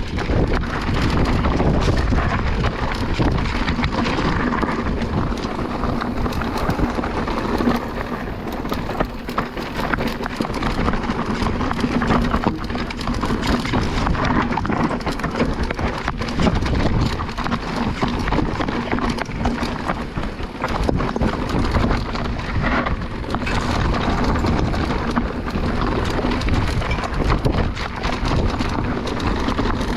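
Riding noise from an e-mountain bike on a rough trail: wind buffeting the microphone, with frequent knocks and rattles as the tyres run over rocks and gravel.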